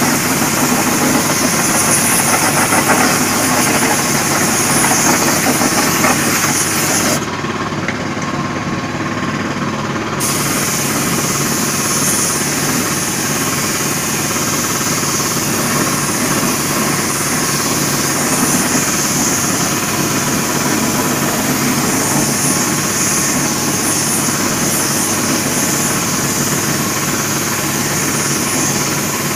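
Steady hiss of a compressed-air spray gun spraying spray-chrome solutions onto a steel wheel rim, over the continuous running of an air compressor. The spray hiss stops for about three seconds around seven seconds in, then resumes.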